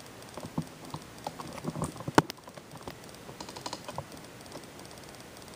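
Small irregular plastic clicks and knocks of a VHS cassette and a TV/VCR combo being handled, with one sharp click about two seconds in.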